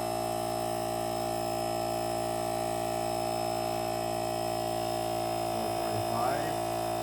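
Portable cordless tire inflator's electric compressor running at a steady pitch with a constant buzzing hum while it inflates a ball toward its 5 PSI set point.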